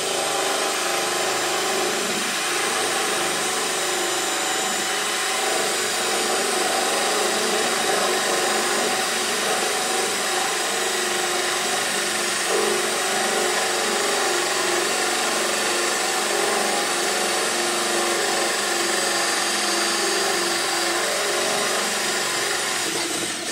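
Cordless drill running steadily under light pressure, driving a 3/4-inch hole saw through a boat's fibreglass gel-coat deck.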